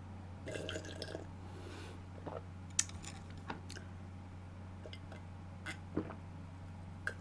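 Faint gulps and small mouth and glass clicks as a person drinks from a glass, likely cola, over a steady low hum.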